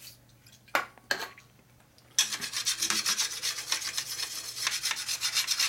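Two light knocks, then from about two seconds in a flat sharpening stone rubbed rapidly back and forth across the face of a drilled motorcycle brake rotor, a fast scraping rasp. The stone is knocking down the raised lips and burrs around the drilled holes, catching on the high spots as it goes across.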